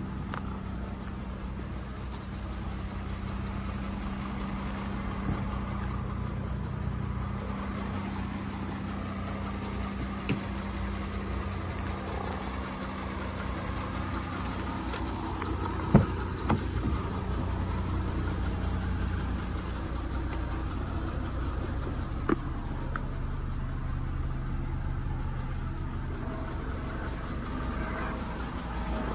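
Volkswagen Amarok's V6 diesel engine idling steadily, with a few brief clicks and knocks, the sharpest about sixteen seconds in.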